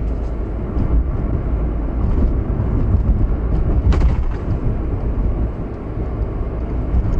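Steady low rumble of road and engine noise inside a moving car. A single short click about four seconds in.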